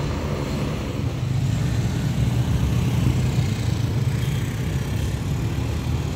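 Road traffic dominated by the low, steady drone of large intercity coach diesel engines approaching, with motorcycles passing; the drone grows a little louder over the first couple of seconds and then holds.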